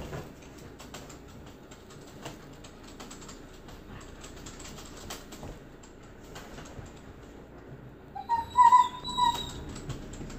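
A standard poodle and a husky scuffling together, with many light clicks throughout; near the end a dog gives a short, high-pitched whine, the loudest sound.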